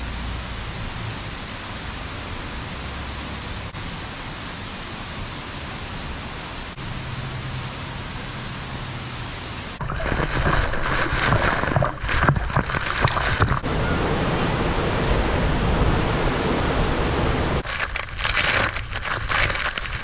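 Steady rushing of a waterfall. About halfway through it turns louder and rougher, with irregular surges.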